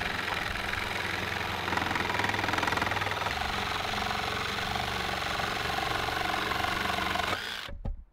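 Cordless jigsaw cutting a curve through a scrap wood board, running steadily and then cutting off suddenly near the end.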